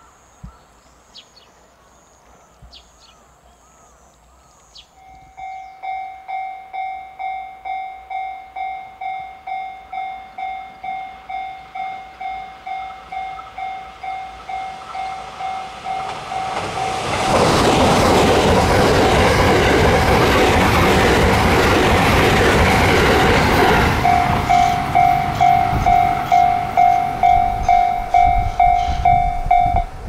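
Birds chirping, then a Japanese level-crossing alarm starts ringing about five seconds in, about twice a second. A limited-express electric train passes close and loud from about 17 to 24 seconds, with the crossing alarm ringing on after it has gone by.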